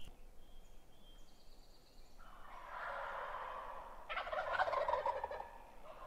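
Wild turkey gobbling twice, about two and four seconds in, the second gobble louder with a rapid rattle.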